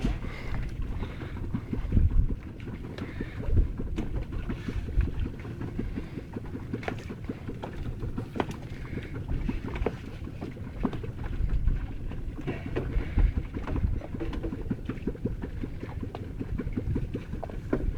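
Wind rumbling on the microphone aboard a fishing boat, swelling and easing in gusts, with scattered light clicks and knocks.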